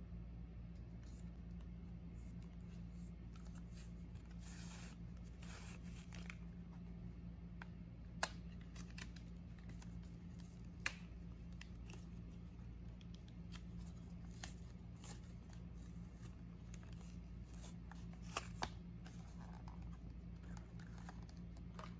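Small plastic toy and its packaging handled: soft intermittent rustling, with a few sharp clicks, two of them in quick succession near the end.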